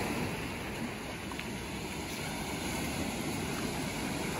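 Surf washing on the beach, a steady rushing noise, with wind on the microphone.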